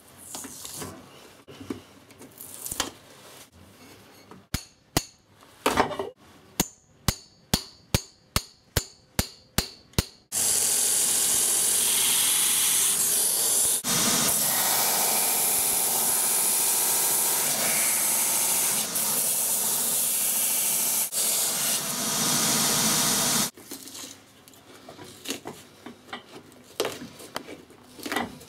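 Shoe repair work on a leather shoe: a hand tool scraping at the sole on an iron last, then about a dozen sharp knocks, roughly two a second. Next, a finishing machine's sanding wheel grinding the old sole, a loud steady hiss for about thirteen seconds that cuts off suddenly, then a hand tool scraping the old cork filler out of the sole.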